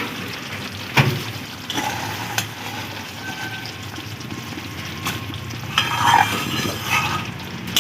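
A cooking utensil stirring thick poppy-seed gravy with pointed gourd in a pan over the heat, scraping the pan with a low sizzle underneath. A sharp knock of the utensil on the pan about a second in.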